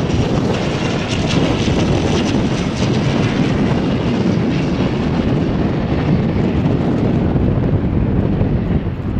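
Airliner noise during a landing: a loud, steady rushing noise, heaviest in the low range, with a hiss on top that fades away over the second half.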